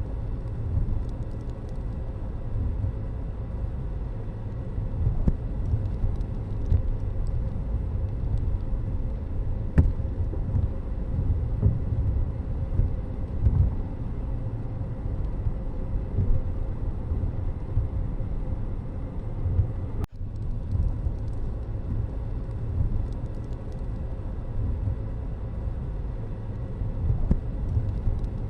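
Steady low rumble of road vehicles and traffic, with a brief click about ten seconds in and a momentary dropout of the sound just after twenty seconds.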